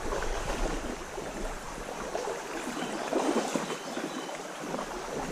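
Shallow trout stream's water running steadily over a stony bed.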